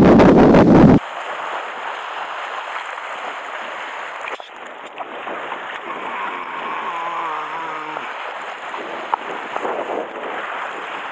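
Strong wind buffeting the microphone, which cuts off abruptly about a second in. After it comes a softer, steady wash of choppy sea lapping and breaking against shoreline rocks.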